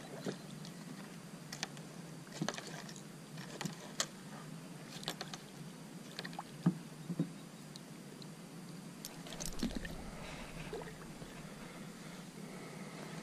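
Scattered light clicks and knocks of gear handled in a plastic fishing kayak, with faint water sounds as a hand dips over the side, and a brief low rumble about nine and a half seconds in.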